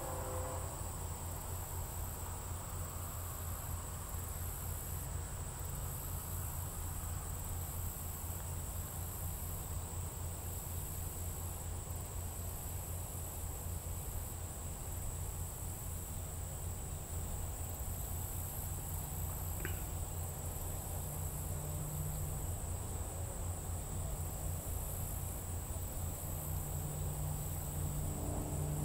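Late-summer insect chorus, a steady high-pitched buzz with a faster pulsing trill above it, over a low steady rumble; a single short rising chirp about two-thirds of the way through.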